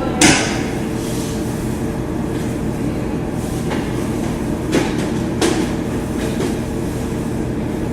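Steady low background rumble, with a few sharp plastic clicks and knocks from handling the bulk vending machine. The loudest knock comes just after the start, and smaller ones follow about four to five and a half seconds in.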